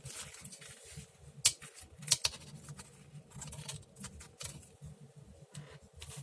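Light handling of paper and craft supplies on a tabletop, with a few sharp clicks and taps, the loudest about a second and a half in and twice just after two seconds.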